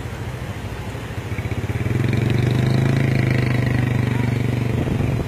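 An engine running steadily, growing louder about a second and a half in and dropping off sharply right at the end.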